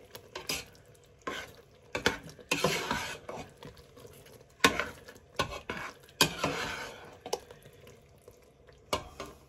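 Metal spoon stirring thick cooked apple pie filling in a cooking pot, with irregular scrapes and clinks of the spoon against the pot and wet swishing of the apple chunks.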